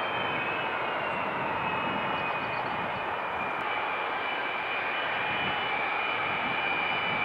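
A Douglas DC-8's four CFM56 turbofan engines run at low taxi thrust, giving a steady jet roar with a high fan whine. The whine dips slightly in pitch about a second in, then holds steady.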